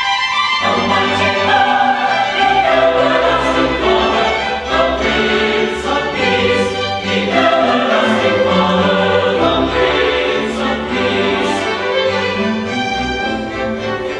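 Mixed choir singing in full classical, operatic style, accompanied by an orchestra.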